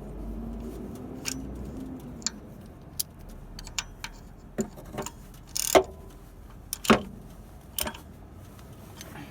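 Irregular metallic clicks and knocks of a wrench tightening a bolt on a car's belt tensioner, with two louder knocks in the second half.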